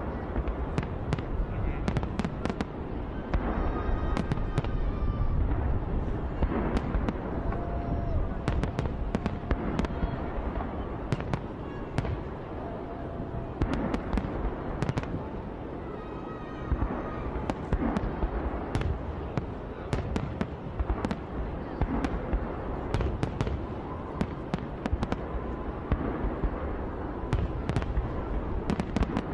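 Aerial fireworks display: shell bursts banging and crackling in quick, irregular succession over a continuous low rumble.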